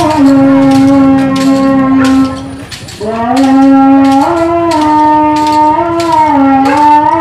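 A loud, sustained melodic tone holding each note and stepping up and down in pitch, with a short break about two seconds in. Sharp cracks repeat over it throughout.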